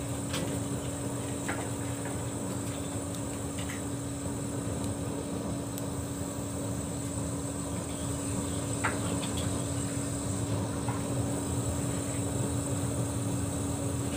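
A steady machine hum with a constant low tone, and a few faint clicks over it.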